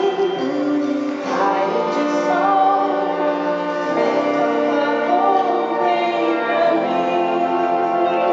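Live band music with a woman singing over it.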